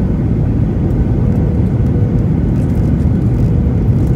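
Steady cabin noise of a Boeing 737's CFM56 turbofan engines and rushing airflow during the landing approach, heard from a window seat over the wing: an even low rumble with a faint steady hum.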